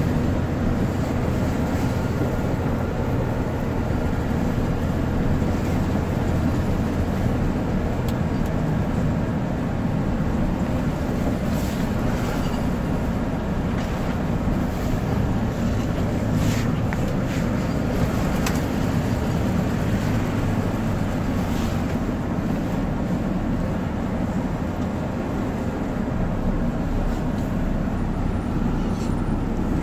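Steady engine and road noise heard inside the cab of an Iveco Eurocargo truck driving on a snow-covered road, with a few light knocks or rattles around the middle.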